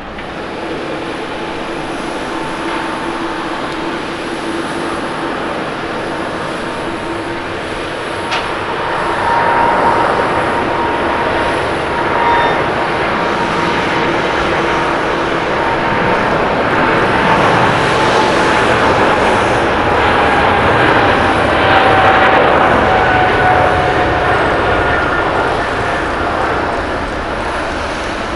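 Boeing 777-300ER's GE90 turbofans at takeoff thrust during the takeoff roll: a loud, steady jet roar that grows louder about a third of the way in. A fan whine slides slowly down in pitch as the jet passes.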